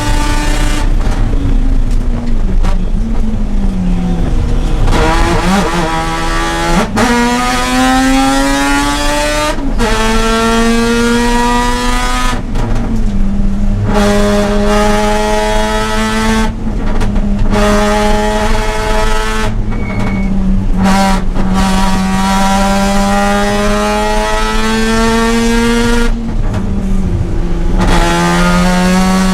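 Mazda RX-8's Renesis two-rotor rotary engine at racing speed, its pitch rising under acceleration, stepping down at gear changes and falling away when the driver lifts and brakes, several times over.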